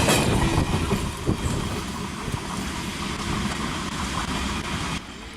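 Freight train rolling past, its wagons rumbling with occasional knocks from the wheels on the rails, growing quieter as it moves away and dropping off sharply near the end.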